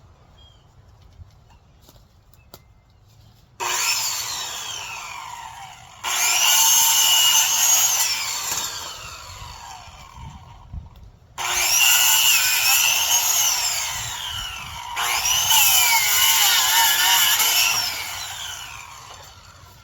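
Electric power saw cutting branches in four bursts, each starting suddenly and running for a few seconds, its whine sliding down in pitch as the motor winds down after each cut.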